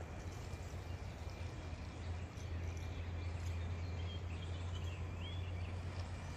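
Outdoor ambience: a steady low hum that grows louder about two seconds in, with a few faint bird chirps near the middle.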